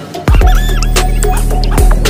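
Background music with a heavy bass and a steady beat.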